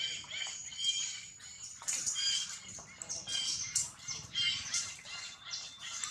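Birds chirping: a busy, overlapping run of short, high calls.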